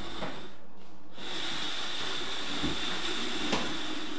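Steady background hiss with a thin high whine, and two faint soft knocks near the end as the wooden crib is nudged into place.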